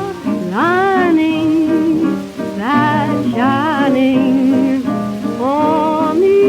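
Late-1920s jazz band music played from a 78 rpm record: a lead line slides up into held notes over the band's accompaniment, with the disc's surface noise faintly beneath.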